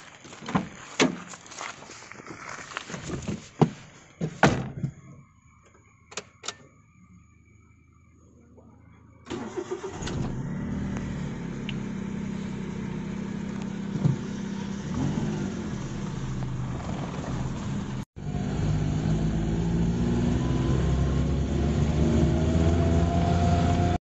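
Car door knocks and clicks as it is opened and shut, then after a few quiet seconds a Maruti Suzuki Alto's engine starts suddenly about nine seconds in and runs steadily. After a cut it runs louder, with a rising tone near the end as it revs up.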